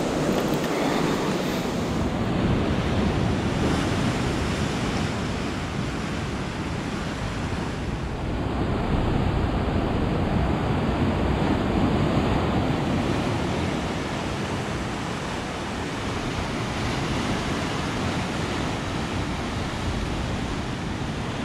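Ocean surf breaking and washing over rocks: a continuous rush of water that swells and eases slowly, with wind buffeting the microphone.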